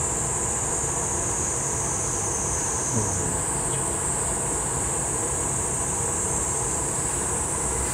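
Steady roar of a gas-fired glory hole (glassblowing reheating furnace) with its burner and blower running, under an even high-pitched hiss. A soft knock about three seconds in.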